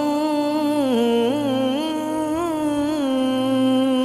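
Saraiki folk song music: a single melody line, gliding and wavering with ornaments without a break, over a low steady drone.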